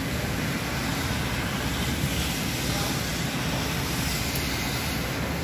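Steady background noise: an even rumble and hiss at a constant level, with no distinct event standing out.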